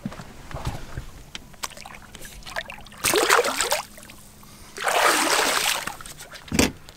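Lake water splashing at the side of a boat as a walleye is released, in two loud bursts about three and five seconds in, with a short knock near the end.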